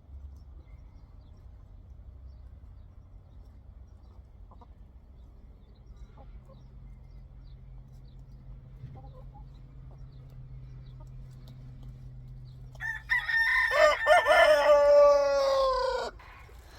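A rooster crowing once near the end, a loud call of about three seconds that falls in pitch as it ends. Before it there is only a faint low hum and a few soft clicks.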